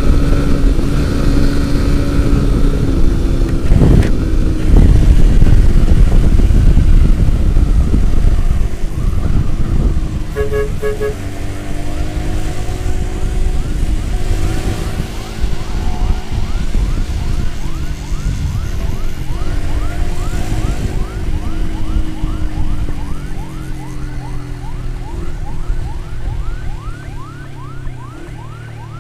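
Siren wailing and then yelping in fast rising sweeps, quickening through the second half, over the heavy rumble and wind of a motorcycle ride. A couple of short beeps sound about ten seconds in.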